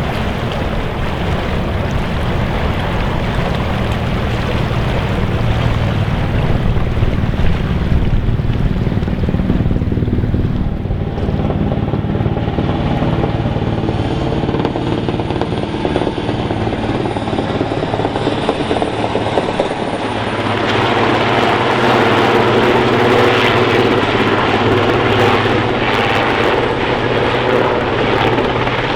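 Steady drone of a large engine. A second, higher engine note grows stronger about twenty seconds in.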